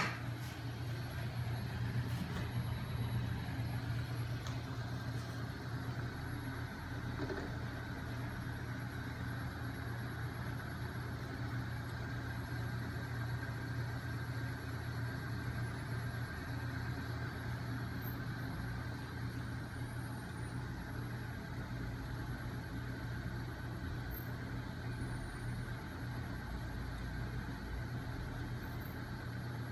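Homemade magnet-and-flywheel rig running steadily, its 5 kg flywheel and magnet crank arms spun by a small 12 V DC electric motor, giving an even low hum.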